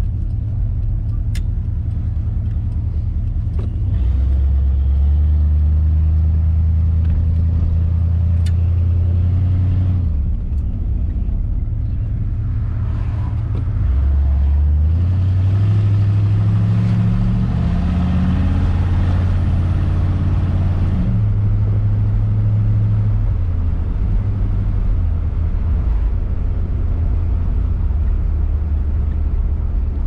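A 1957 Ford Thunderbird's V8 engine running while the car is driven, its note rising as it accelerates and falling back several times. A hiss of road and wind noise swells during the faster stretch in the middle.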